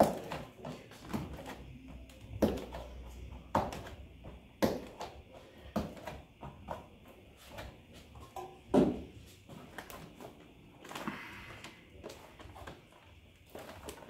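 A plastic tire lever and a tight tire bead knocking, clicking and scraping against a mountain-bike rim as the bead is levered and pushed over a Cush Core insert. The knocks are irregular, about one a second, and the loudest comes a little past halfway.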